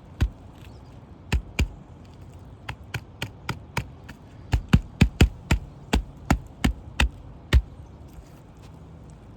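Hammer blows on a roof during a shingle repair: sharp, separate strikes in short runs of about three to four a second, with a few brief pauses, stopping a little before the end.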